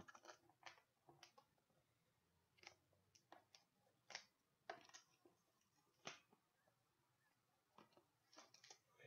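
Faint, scattered crinkles and crackles of plastic shrink wrap being pulled off a cardboard trading-card box, a dozen or so short bursts at uneven intervals.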